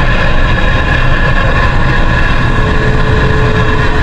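Steady vehicle noise inside a truck's cabin: engine and road rumble.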